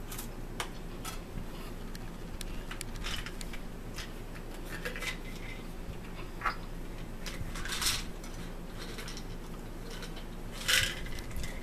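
Eating at a table: short clicks of cutlery on dishes and crackling crunches of crackers being chewed, with the loudest rustling crackle near the end as a small plastic bottle is handled.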